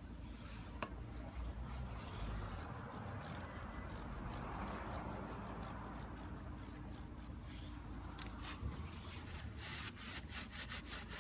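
Stiff brush scrubbing a motorcycle drive chain: a fast run of short scratching strokes, broken by a short pause about two-thirds of the way through.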